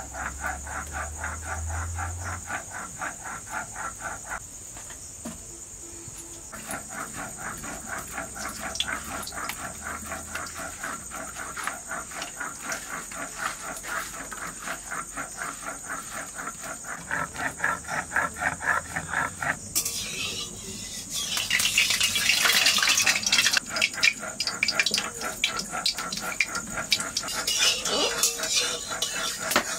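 A fast pulsing night chorus of insects with a steady high whine, then, about two-thirds of the way through, hot oil in a kadai over a wood fire starts sizzling and crackling loudly as something goes into it.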